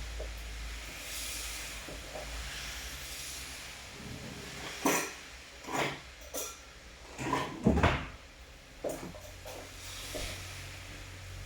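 Steady rain hiss, with a run of sharp knocks and clatters through the middle, the loudest of them just past the middle.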